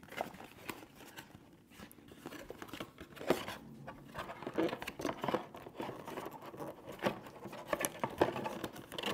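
Stiff white paperboard packaging insert being unfolded and pulled apart by hand: irregular rustling and scraping of cardboard with scattered light clicks, the sharpest about three seconds in and again near the end.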